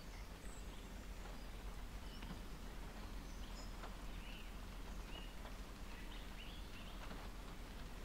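Rain falling on a car's roof and windscreen, heard from inside the stopped car: a faint steady patter with scattered single drop ticks. A few faint short chirps come in around the middle.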